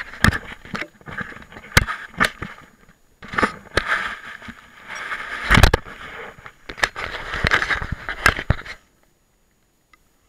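Handling noise on a small camera's microphone: irregular scraping and rustling with sharp knocks and clicks as it is moved about, stopping suddenly about nine seconds in.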